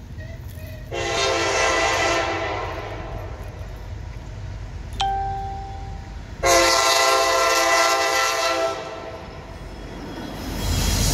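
CSX diesel locomotive's multi-chime air horn sounding two long blasts, with a short sharp note between them, over the steady low rumble of the approaching train. Near the end the rumble swells as the locomotives draw level.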